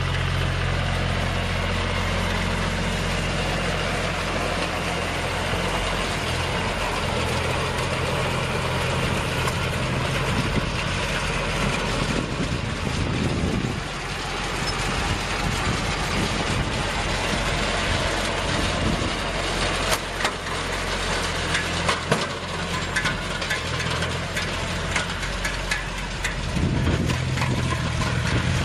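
Farm tractor engine running steadily while pulling a compact round baler through straw stubble, with scattered clicks and knocks in the second half.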